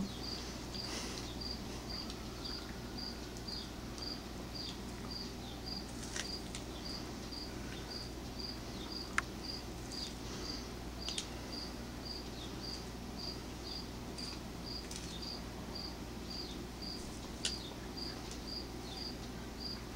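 A cricket chirping steadily, about two short chirps a second, over a low constant hum. A few sharp clicks come through as a cat bites kernels off a corn cob.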